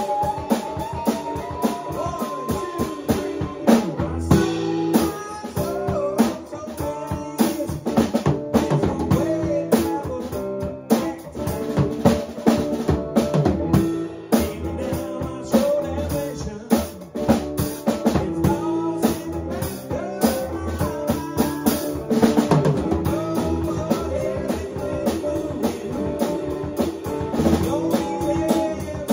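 A band playing a song in rehearsal: a drum kit with bass drum, snare and rimshots driving a steady beat under guitar.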